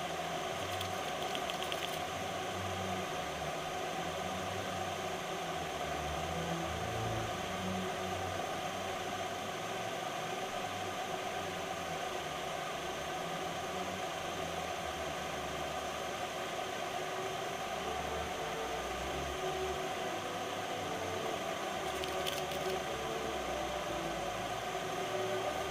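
Steady hiss of background noise with a faint whir beneath it, unchanging throughout.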